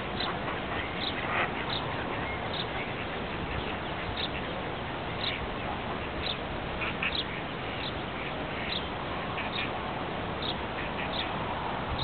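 Ducks and ducklings calling on a pond: a run of short, high-pitched peeps, roughly one a second, over a steady background hiss.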